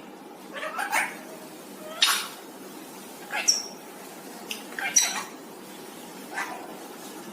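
Pet parrot giving five short squawking calls, spaced about a second or so apart, one with a high whistle-like note near the middle.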